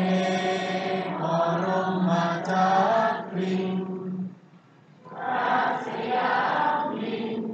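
A group of voices chanting in unison, in two long phrases with a short pause between them about halfway through.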